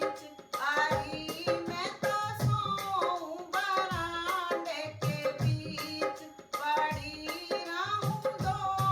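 A woman sings a comic Hindi folk song to a hand-drum accompaniment, with the melody bending and held between regular drum strokes.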